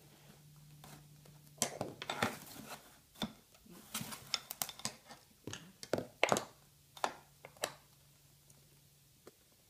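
Irregular light clicks and knocks of glass and metal as a glass strip is slid against a stained-glass angle copier and the jig is handled on the cutting board, over a faint steady low hum.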